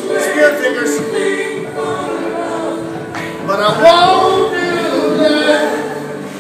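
Song with singing voices playing as a music track.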